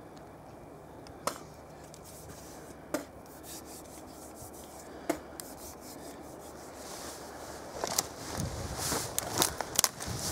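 Wood rubbing and scraping against wood: a faint steady rubbing with a few sharp clicks, becoming busier with more clicks and knocks near the end.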